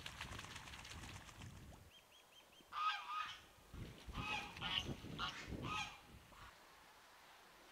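Domestic farm waterfowl calling: several loud calls in quick groups between about three and six seconds in, after a low rumbling noise in the first two seconds and a few small chirps.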